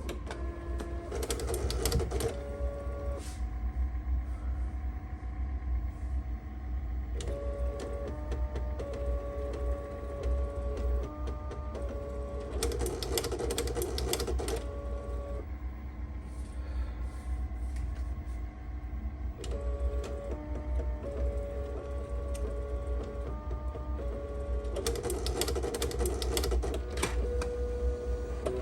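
Apple StyleWriter inkjet printer running a print test: the motor whirs in tones that step from pitch to pitch, with three louder buzzing passes about twelve seconds apart.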